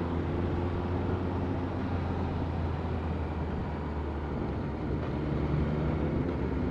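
Motorcycle engine running steadily under way, with a constant low drone and road noise; it eases off slightly in the middle and picks up again near the end.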